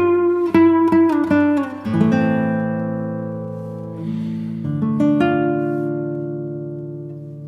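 Background music of acoustic guitar: a few plucked notes, then sustained chords left to ring and slowly fade, with a new chord struck about five seconds in.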